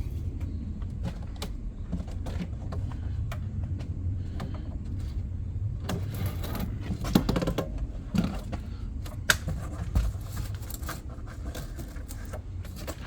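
Handling noise while the clutch's packaging is worked open: scattered clicks, scrapes and rustles, busiest about halfway through. Under it runs a steady low rumble.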